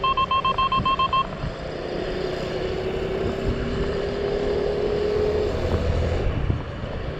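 Electric scooter riding noise: wind and tyre rumble, with a faint motor whine rising slowly in pitch as it picks up speed. For about the first second, a fast run of short electronic beeps, about six a second, ends abruptly.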